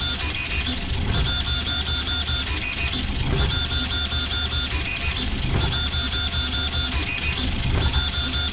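VzBoT 3D printer's stepper motors and gantry driving the toolhead back and forth at 2000 mm/s in a high-acceleration test. Steady whine over a low hum, with a pattern that repeats about every two seconds.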